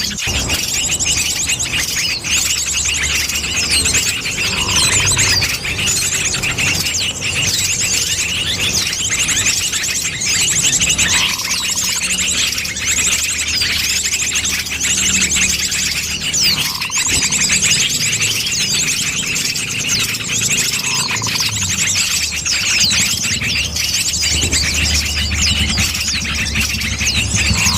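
Bird-lure recording of small birds: dense, continuous high-pitched chirping and rapid trills, with a soft lower note every five or six seconds.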